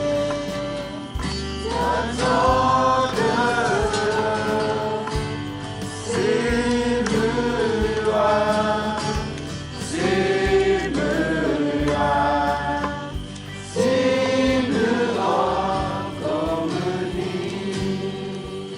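A group of voices singing a gospel hymn over a low bass accompaniment, fading out near the end.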